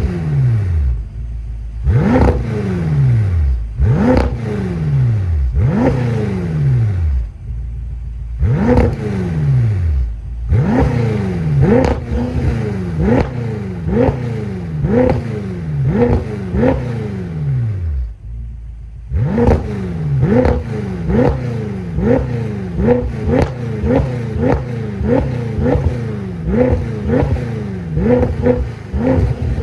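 BMW M5 F10's 4.4-litre twin-turbo V8 on the stock exhaust, revved in short sharp blips, each one rising quickly and falling back toward idle. The blips come about one every two seconds at first, then about one a second, and quicker still after a brief lull about two-thirds of the way through.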